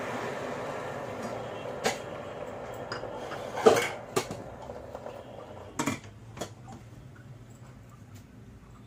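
Stainless steel pressure cooker lid clanking as it is fitted and closed on the pot: a handful of sharp metal knocks, the loudest about three and a half seconds in. A hiss fades away over the first few seconds.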